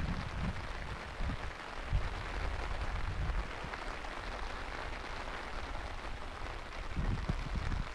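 Steady hiss of rain falling over open ground, with irregular low rumbles of wind buffeting the microphone, heaviest near the start and again near the end.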